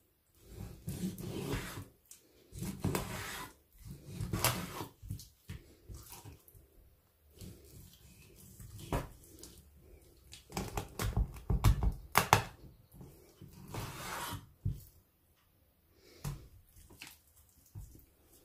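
Kitchen knife slicing raw chicken into pieces on a wooden cutting board: a series of cutting strokes and soft thuds every second or two, with sharp knocks of the blade on the board about twelve seconds in.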